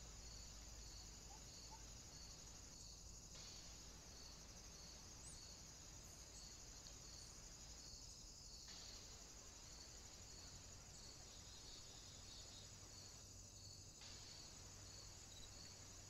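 Faint, steady high-pitched insect chorus trilling, with a soft regular pulse, over the low hiss of the camera's microphone.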